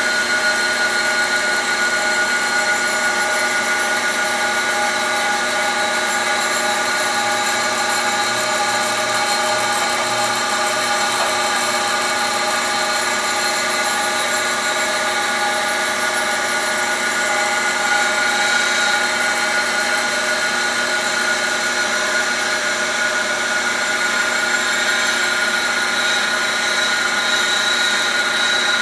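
Cylindrical grinder running steadily as its wheel grinds along a steel lathe shaft, a constant machine whine with several steady tones over a hiss.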